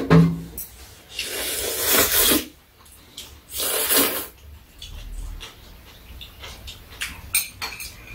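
Noodles being slurped from a bowl of noodle soup: two long slurps, the first about a second in and the second a few seconds later. A sharp knock near the start and light clicks of chopsticks against bowls.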